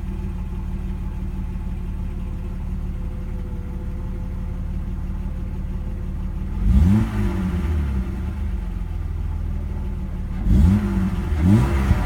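BMW E30's M50B25 2.5-litre inline-six idling steadily through its original stock exhaust. It is blipped three times, once a little over halfway through and twice in quick succession near the end, each rev rising and falling back to idle within about a second.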